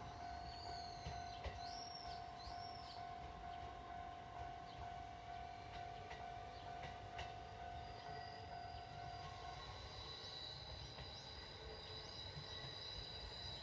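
Faint outdoor ambience: a steady mid-pitched hum that stops about nine and a half seconds in, a few short high chirps in the first three seconds, and a steady shrill high note that starts about ten seconds in.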